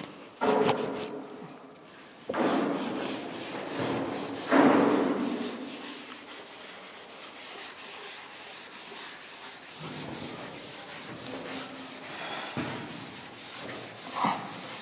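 Chalkboard duster rubbed back and forth across a chalkboard, wiping off chalk writing in many quick scrubbing strokes, loudest in the first few seconds and softer after.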